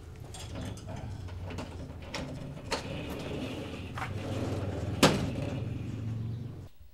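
Glass-panelled door being opened: a series of clicks and knocks over a steady low hum, the sharpest click about five seconds in. The hum cuts off suddenly just before the end.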